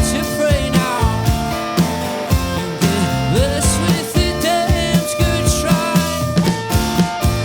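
Live band music: a rock song played by guitars, bass and drums, with a steady beat of about two hits a second.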